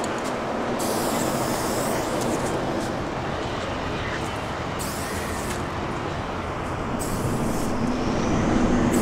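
Steady traffic noise from the road overhead. An aerosol spray-paint can hisses over it in three bursts of about a second each as a line goes on the wall.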